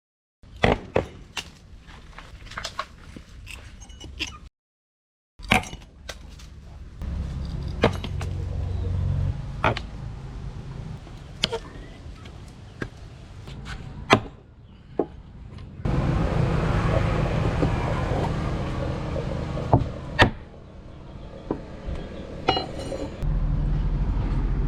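Irregular hammer blows on steel, single sharp strikes spaced a second or more apart, with short cuts between stretches. About two-thirds of the way through, a steady rushing noise runs for several seconds, still broken by strikes.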